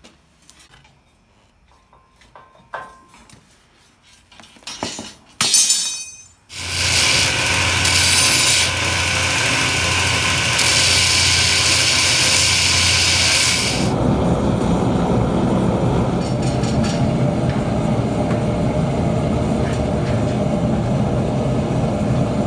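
A few light taps and scrapes, then a power tool cuts steel bar stock: loud and steady from about six and a half seconds in, with a strong hiss. The hiss drops away about fourteen seconds in, leaving a steady lower rumble.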